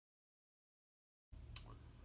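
Near silence: dead silence, then faint room tone with a low hum starting a little over a second in, and a single small click soon after.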